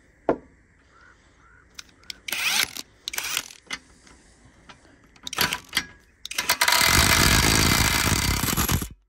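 Hyper Tough 12V 3/8-inch cordless impact wrench hammering for nearly three seconds as it breaks loose a bolt torqued to about 250 foot-pounds, then stopping abruptly. Before it come a few knocks and clicks as the socket is fitted onto the bolt head.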